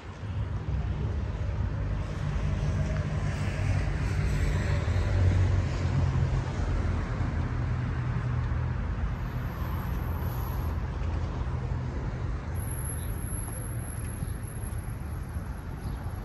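A heavy engine passing by with a low hum over road noise, swelling to its loudest about five seconds in and slowly fading.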